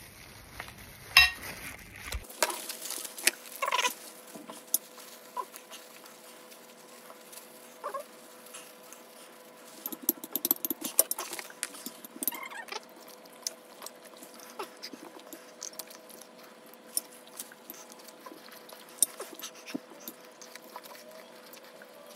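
Crinkling and crackling of clear disposable plastic gloves as a chip is crushed over a bowl, with scattered clicks of a fork against a ceramic bowl. The crackling is thickest about halfway through.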